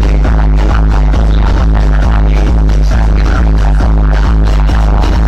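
Loud electronic dance music with heavy, booming bass and a fast beat, played through a large DJ sound system of eight bass and eight top speaker cabinets.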